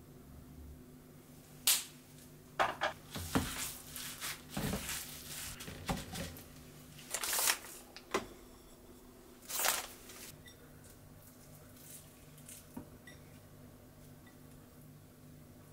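Kitchen handling noises: a series of light knocks and clatters with short plastic rustles as a stack of gyoza wrappers is taken from its packet and set on a small wooden dish beside the filling bowl. The noises run through the first ten seconds or so, then only a few faint ticks follow.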